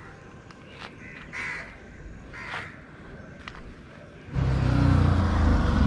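A couple of faint short calls, then about four seconds in a motorcycle engine suddenly comes in loud and runs steadily.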